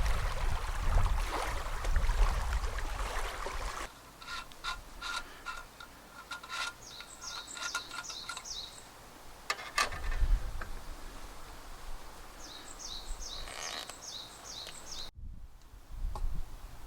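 Outdoor lakeside ambience with a bird singing short runs of quick, high, repeated chirps, over a low rumble of wind on the microphone in the first few seconds and a few scattered clicks.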